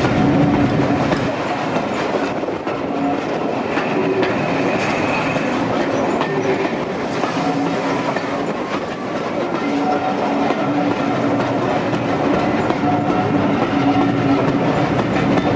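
Train of passenger coaches rolling past slowly on curved track, the wheels clattering over rail joints and pointwork, with a few held tones coming and going.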